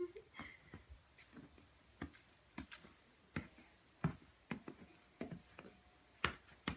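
Faint, irregular short crunches in snow, about a dozen spread unevenly, from someone moving about in fresh snow.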